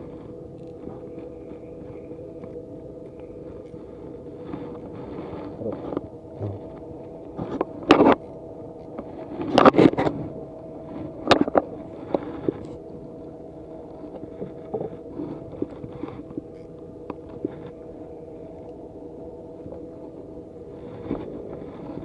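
A steady low engine hum, with several sharp knocks and rustles of handling in a wooden boat, the loudest about ten seconds in.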